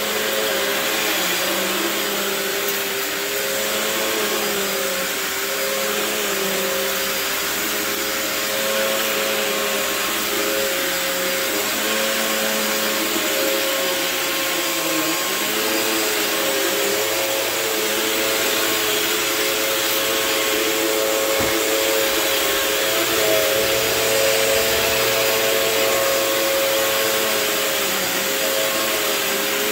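Phantom Twister bagless vacuum cleaner running steadily, its motor hum wavering slightly in pitch over a constant rushing of air.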